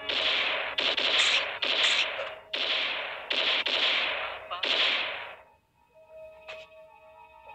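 Soldiers' rifles firing: about six loud gunshots, roughly one a second, each with a long echoing tail. Soft film music comes back near the end.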